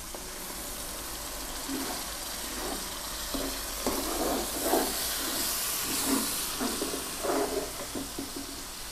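Blended tomato purée sizzling in hot oil over a masala of browned onion and ginger-garlic paste, stirred with a spoon. A steady hiss runs under irregular stirring scrapes from about two seconds in, and the hiss swells for a moment around five to six seconds in.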